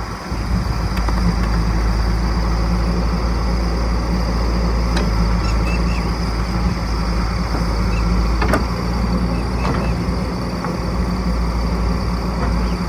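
Diesel engine of heavy farm or construction machinery running steadily under load, with a few short knocks and clanks.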